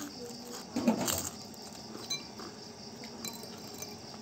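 Metal spoons tapping and clinking against ceramic soup bowls in light, scattered ticks, with a louder eating noise about a second in while a chicken foot is being gnawed.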